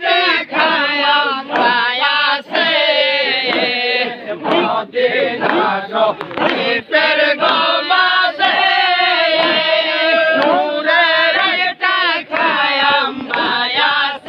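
A crowd of men chanting Sufi zikr together, many voices repeating a rhythmic devotional chant in unison.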